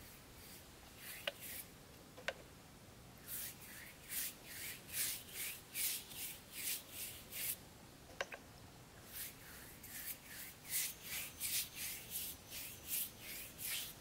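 Flat paintbrush swishing back and forth over a wooden chair, brushing on a glossy wood finish: two runs of quick strokes, about two a second, with a few sharp clicks before them.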